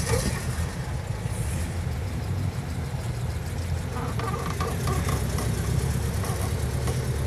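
Air-cooled flat-four engine of a VW Beetle running steadily while the car is driven, heard from inside the cabin.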